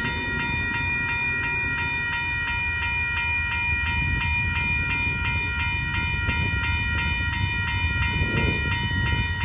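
Railroad crossing warning bell ringing steadily at an even, rapid rhythm while the gates are down and the lights flash, over a low rumble that grows slightly louder toward the end.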